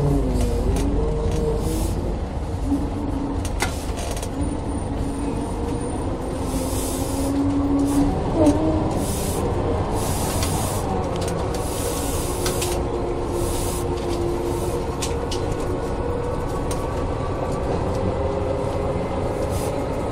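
Ikarus 415 city bus running: its DAF LT 160 diesel engine and ZF 4HP 500 four-speed automatic gearbox give a deep rumble under a whine whose pitch shifts up and down. Short bursts of hiss come in now and then.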